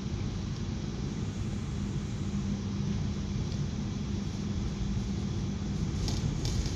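KA Maharani passenger train running: a steady low rumble with a constant hum underneath, and a few faint clicks near the end.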